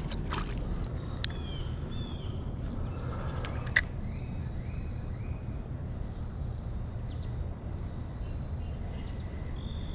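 Outdoor river ambience: a steady low rumble with a few short bird chirps, and two sharp clicks, the louder one about four seconds in.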